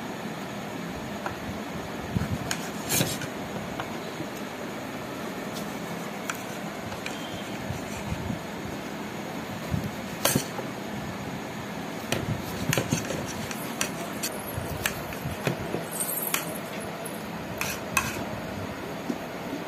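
Small knife cutting apple pieces on a plate, the blade knocking and scraping against the plate in irregular clicks and taps, over steady background noise.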